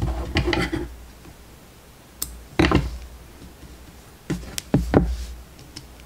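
Hands handling embroidery hoops and the stretched fabric on a wooden desk: short knocks and scuffs in three clusters, at the start, about two and a half seconds in, and again a little after four seconds.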